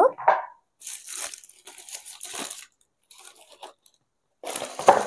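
Tissue paper rustling and crinkling in a cardboard shoe box as the wrapped footwear is pulled out, in several bursts with the loudest near the end.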